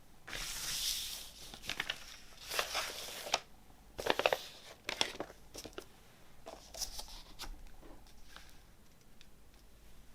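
Paper and cardboard vinyl-record packaging (sleeves and inserts) being handled by hand: crinkling and rustling in several short bouts with small clicks, the loudest about four seconds in.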